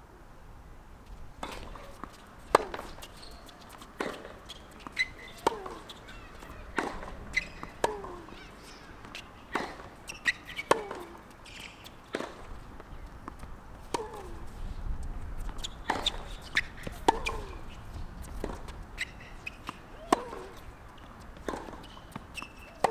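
Tennis ball being hit back and forth in a long hard-court rally: sharp pops of racket strikes and ball bounces, about one a second. Many of the hits are followed by a short sound that falls in pitch.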